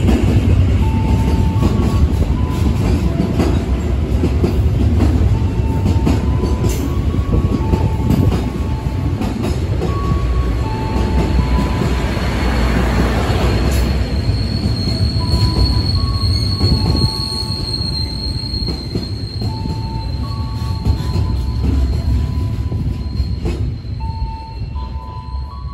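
Container freight train of flat wagons running through at speed: a loud, steady rumble of wheels on rail, broken by short high squeals from the wheels. A thin, steady high whine sets in about halfway through.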